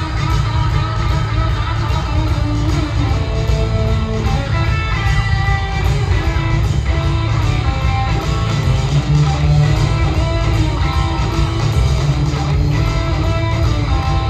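Live rock band playing loud: electric guitar and bass guitar over drums, with guitar note lines stepping through a melody and a heavy, steady low end, heard from the crowd in an amphitheater.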